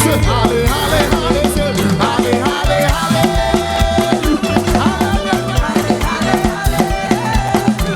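Upbeat live gospel praise music with a driving drum beat and bass line, and some singing over it.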